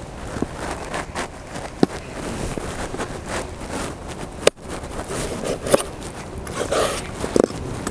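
Cut raw chicken pieces being handled and moved about on a wooden cutting board: scattered soft taps and knocks against the board over a low outdoor rumble.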